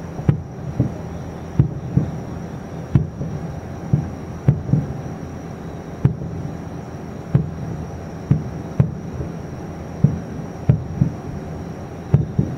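Distant aerial firework shells bursting: a run of dull booms, about one or two a second, some coming in quick pairs.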